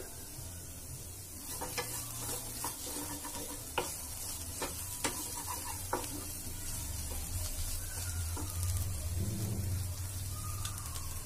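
Wooden spatula stirring and scraping cooked vegetables in a kadai, with scattered clicks of the spatula against the pan, most of them in the first half, over a soft sizzle of the vegetables frying.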